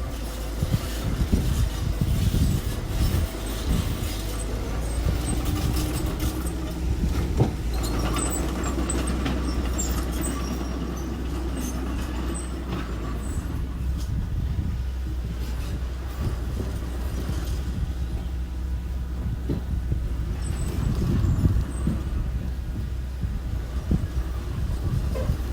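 Small construction machinery running, a steady low engine drone with irregular metallic clanks and rattles throughout.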